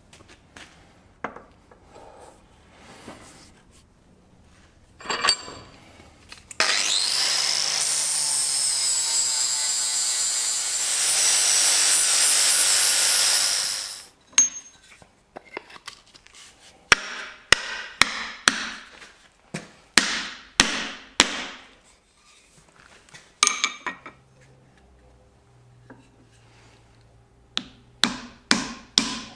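A power tool runs steadily for about seven seconds, its pitch stepping up partway through. This is followed by a run of short knocks and scrapes. Near the end a hammer strikes the end of a wooden tool handle in a quick, even rhythm, about two blows a second, driving the handle into the eye of a forged hot cut chisel.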